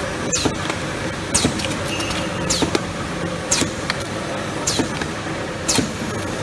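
Automatic popcorn can filling and sealing line running, with a steady machine hum. About once a second it gives a sharp click with a brief falling hiss as the line cycles, six times in all.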